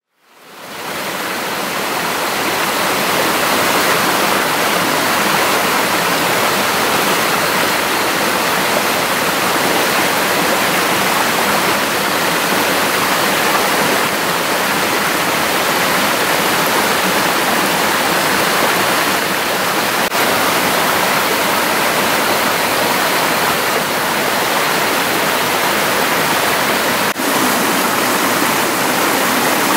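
Water rushing over rocks in a stream: a loud, steady rush that fades in during the first second.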